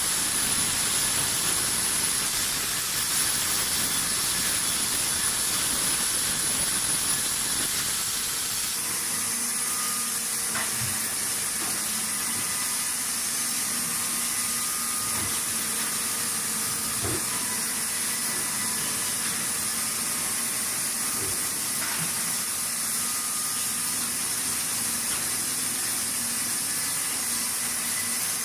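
Sawmill machinery running: a steady hiss with a high whine. About eight seconds in the sound shifts to a steady low hum under the hiss, with a few faint knocks.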